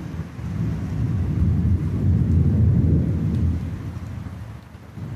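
Thunder rumbling low, swelling over about two seconds and then fading away, over a steady hiss of rain.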